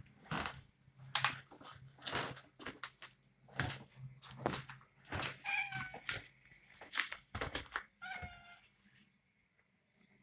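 Two cats, a calico and a Siamese, squaring off: repeated short breathy hisses, with two short meows, one about halfway through and one near the end.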